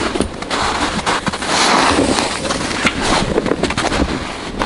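Footsteps crunching and ploughing through deep snow, an uneven run of crackling steps with a heavier swish about two seconds in.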